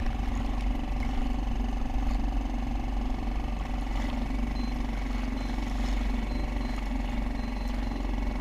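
Steady low rumble with a constant hum, like an engine or wind, and a few faint short high beeps in the second half.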